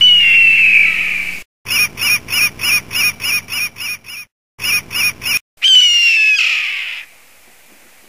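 Birds of prey calling: a long scream falling in pitch, then a rapid run of short, sharp repeated calls about four a second, cut by two brief silences, then a second long falling scream about two-thirds of the way in.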